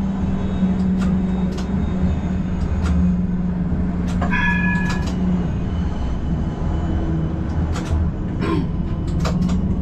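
Combino tram running along the rails, a steady low drone with a constant hum from the drive, broken by scattered clicks and knocks from the track. About four seconds in, a brief ringing tone of several high pitches sounds for under a second.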